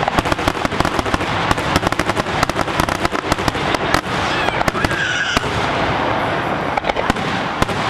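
Fireworks display: a dense, continuous crackle of many rapid pops and bangs.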